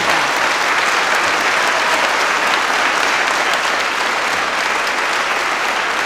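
Audience applauding, loud and steady.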